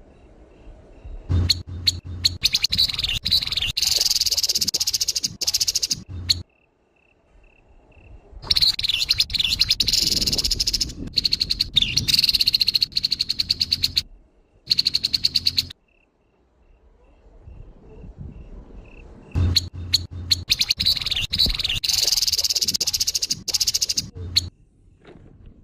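Grey-headed babbler (tepus kepala abu) giving its harsh call: long bursts of fast, rasping rattle lasting several seconds each, three times with short pauses between. Soft, evenly spaced notes can be heard in the gaps.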